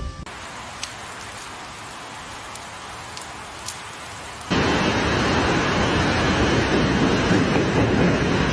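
Steady rushing noise of falling or running water, like rain, with a few faint ticks. It is fainter at first and turns much louder about halfway through.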